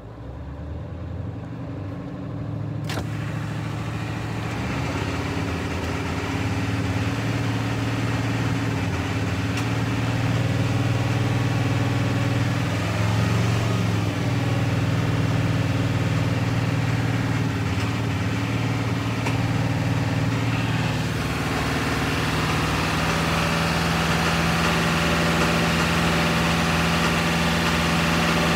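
1997 Ford F350's 7.3 L Power Stroke turbo-diesel V8 running at raised rpm. It gets louder over the first few seconds, then holds steady, and steps up in speed about 20 seconds in, with a sharp click early on. The engine is being revved to show a skip and knock at high rpm, which the owner believes is a bad injector.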